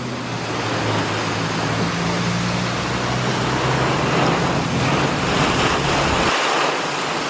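Heavy wind-driven rain and strong gusts of a severe thunderstorm: a steady, dense rushing noise. A low steady hum runs underneath and drops out about six seconds in.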